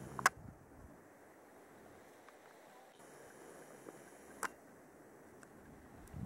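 Faint, steady outdoor hiss broken by two sharp clicks, a loud one just after the start and a weaker one about four seconds later.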